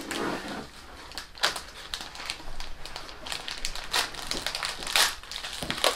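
Plastic snack wrapper crinkling and crackling in irregular sharp crackles as it is handled and pulled open by hand.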